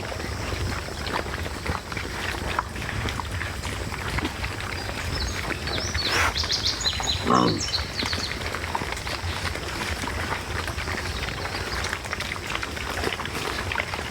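Wild hogs close by: scattered rustling and small clicks throughout. About six seconds in, a brief high squeal is followed by a short call that drops in pitch.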